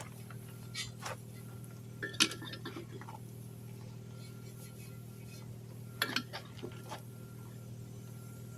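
Metal clinks and clanks from tire-changing work at a tire machine, with a sharp clank about two seconds in and a cluster of clinks about six seconds in, over a steady low hum.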